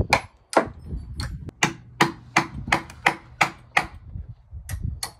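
Hammer driving nails into wooden framing lumber, a steady run of sharp strikes about three a second, with a short pause near the end before a few more blows.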